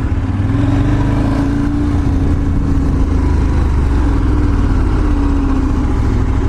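Motorcycle engine running steadily under way at low speed, its note rising a little early on and then easing off gently.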